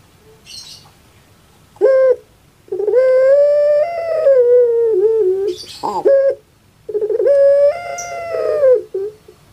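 Female puter pelung (domestic ringneck dove) cooing: a short note, then two long, drawn-out, wavering coos with a brief swooping note between them. This is the rhythmic crying coo the bird is kept for.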